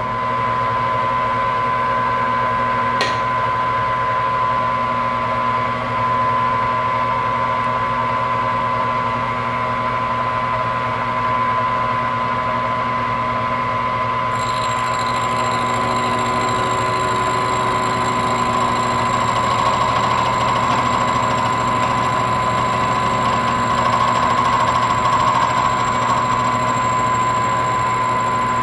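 Vertical milling machine running with a steady whine as its gear cutter takes the first cut into an aluminium gear blank. There is a single sharp click about three seconds in, and a higher thin whine joins about halfway through.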